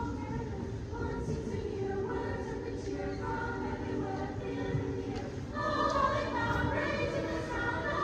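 A high school choir singing, several voices holding sustained notes together; the singing grows louder about five and a half seconds in.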